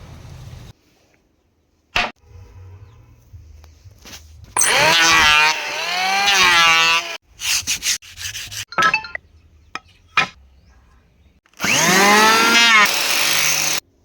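Tool working a piece of wood, heard as rasping, abrading strokes in several short cut-together stretches. The two longest and loudest stretches carry a pitch that swings up and down with the strokes.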